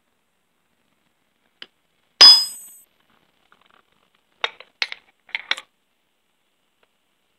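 A steel ball-peen hammer strikes once with a bright ringing clang, peening a tie-strap rivet on a saw chain, then a few lighter metal clinks follow.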